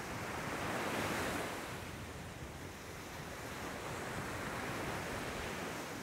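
Small sea waves breaking and washing up a sandy beach, with a louder surge about a second in and another around four to five seconds in.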